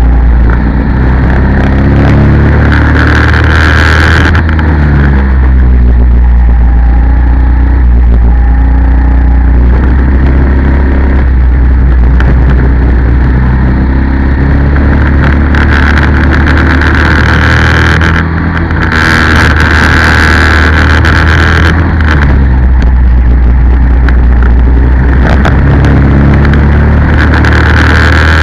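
Racing kart engine at full throttle, its pitch climbing and dropping again and again as it revs up along the straights and eases for the corners, over heavy wind rumble on the onboard microphone.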